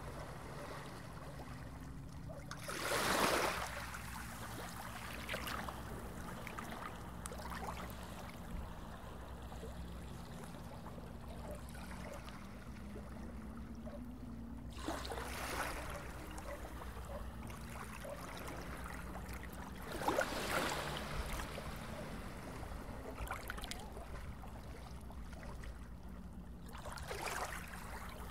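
Underwater ambience: water trickling and bubbling over a steady low hum, with a louder rushing swell four times, the first and loudest a few seconds in.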